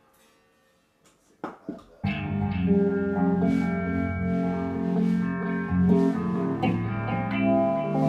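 Electric guitar music: after a near-silent start and a couple of brief sounds, sustained ringing guitar chords start about two seconds in and carry on, changing every half second or so.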